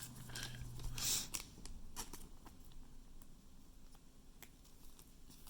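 Faint handling of trading cards: soft rustles and light clicks, with one brief louder swish about a second in.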